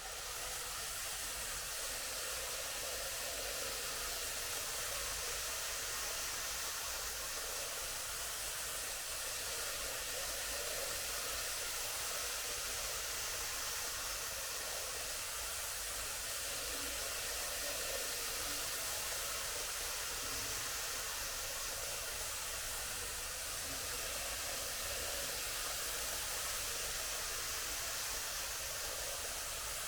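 Tomix N-scale model train running on its track: a steady whirring hiss of the small motor and wheels with a low rumble underneath, starting suddenly and holding even throughout.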